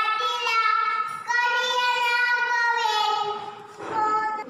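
A young girl singing a song alone, holding long drawn-out notes, with short breaths between phrases about a second in and again near the end.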